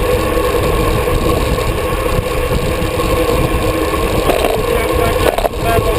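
Wind rushing over a handlebar-mounted GoPro on a road bike at speed, with a steady rumble of road noise from the tyres on asphalt.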